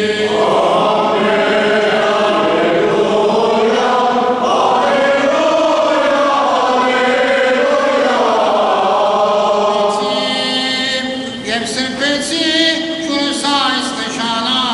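Armenian Church choir chanting a hymn in sustained, many-voiced lines. About ten seconds in it gives way to a single man's chanting voice.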